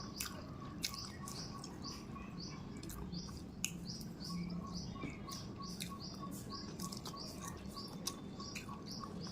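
A small bird chirping over and over in the background, about two short high chirps a second, with a few sharp clicks scattered through.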